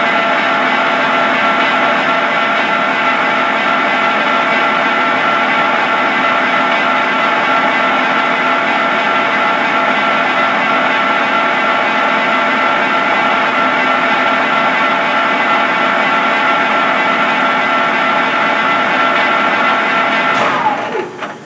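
Barber-Colman 16-16 gear hobber running under power: a steady machine drone with several fixed whining tones. About a second before the end it winds down, its pitch falling as it stops.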